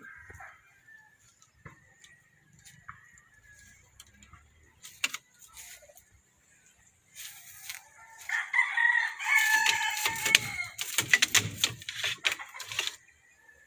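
Rooster crowing: a long, loud call with a few breaks, starting about eight seconds in and lasting several seconds. A run of sharp clicks comes over its second half.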